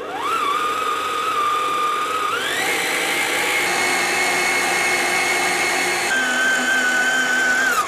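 Electric stand mixer whipping double cream, its motor whining as it spins up, stepping up to a higher speed about two seconds in, dropping back to a lower speed about six seconds in and winding down at the end.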